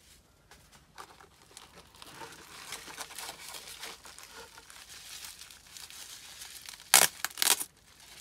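Bubble wrap and plastic packaging rustling and crinkling as a wrapped tool is handled, with two loud, sharp crackles near the end.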